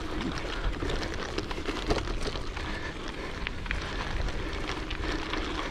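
Bicycle tyres rolling over a dirt road, with scattered small crackles from grit under the wheels and a low rumble of wind on the microphone.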